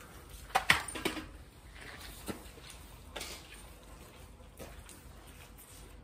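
A few sharp knocks and clinks, the loudest two close together about a second in, then single ones spaced a second or so apart, over a faint steady outdoor background.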